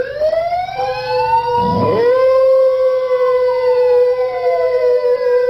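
Dogs howling together: two or more long, overlapping howls, one held on a steady pitch while another rises and then slowly falls. There is a short, lower yowl about two seconds in.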